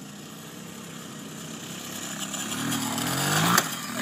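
Small dirt bike's engine running, then revving higher with rising pitch. Near the end a sharp crack comes and the engine sound cuts off.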